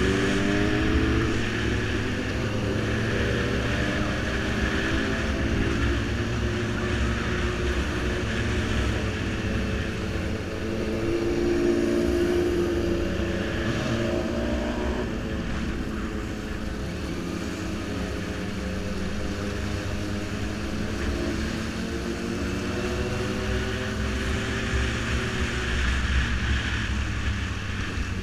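Sport motorcycle engine heard from on the bike while riding, its pitch rising and falling several times as the rider accelerates and eases off through the gears, over a steady low rumble.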